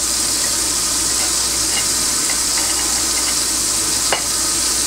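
Kitchen faucet running steadily, a thin stream of water splashing into the sink basin near the drain.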